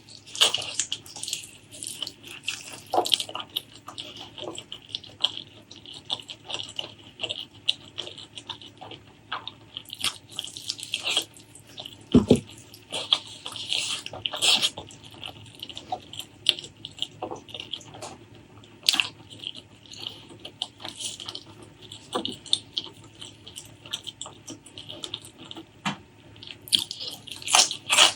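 Close-miked wet chewing and mouth sounds of a person eating spicy pork leg curry with white rice: an irregular run of short, moist clicks and squelches, with one fuller knock about halfway through.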